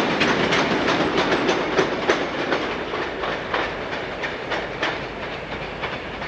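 Tank wagons of a freight train rolling away, their wheels clicking over the rail joints about three times a second, fading as the train recedes.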